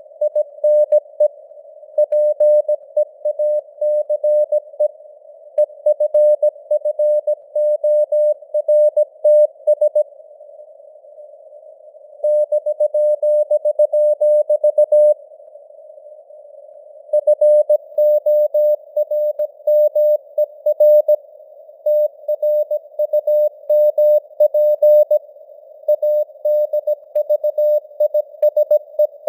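Morse code (CW) sent at 17 words per minute as a single pitched tone of about 600 Hz, keyed on and off in dots and dashes over a narrow band of simulated radio hiss. Two pauses of about two seconds leave only the hiss.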